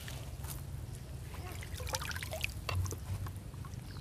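Water trickling and dripping off a three-layer trammel net as it is lifted by hand out of a pond, with small scattered splashes over a low steady rumble.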